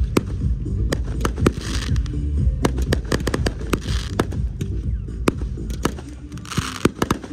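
Fireworks going off in quick succession: many sharp pops and bangs from shells and comets, with bursts of crackling about a second and a half in, around four seconds, and near the end, over music playing steadily with most of its sound in the bass.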